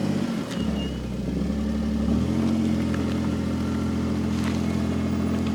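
Small engine idling steadily, its pitch settling lower near the start and shifting slightly about two seconds in.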